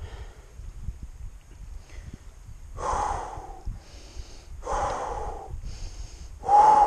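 A mountain biker breathing hard, three heavy exhales a little under two seconds apart, the last the loudest with a slight voiced groan. Wind rumbles on the helmet-camera microphone throughout.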